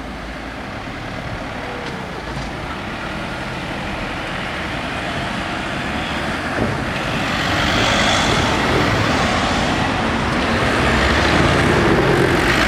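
Cars, then a small van, driving across the level crossing towards and past the microphone. The engine and tyre noise builds steadily and is loudest in the second half as the van comes close.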